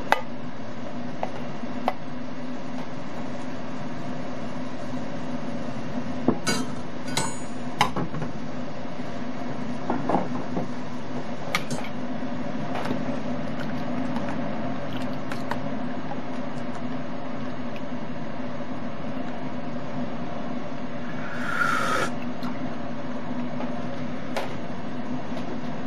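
Chicken broth boiling in an aluminium pot on a gas stove: a steady hiss with a low hum, scattered small pops and knocks, and a brief louder rush near the end.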